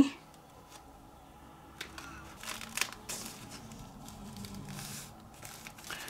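Soft rustling and rubbing of paper as a gel print is laid onto a PVA-glued card cover and smoothed flat by hand, with a few short crinkles.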